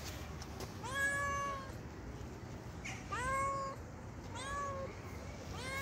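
Tabby-and-white cat meowing four times, each meow rising at the start and then held level; the first is the loudest, and the third is short.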